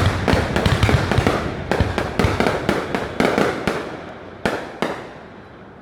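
Aerial fireworks bursting in rapid succession, many sharp bangs and crackle for about four seconds, then thinning to two separate bangs and dying down near the end.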